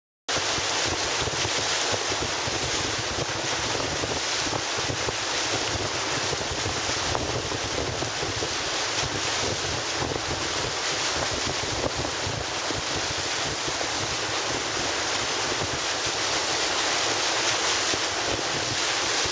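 Steady wind buffeting the microphone over rushing water, from a boat moving across open water.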